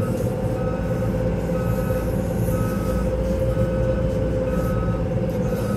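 Tractor engine running steadily, heard from inside the cab, with a short high beep repeating at an even pace like a reversing alarm.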